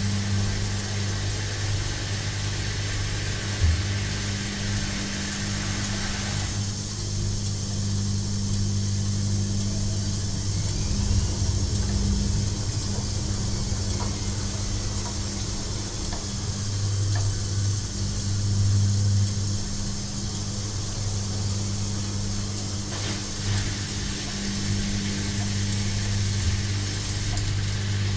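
Washing machine running: a steady low motor hum with a noisy wash of sound above it. The upper hiss drops away about six seconds in and returns near the end, with a few faint knocks along the way.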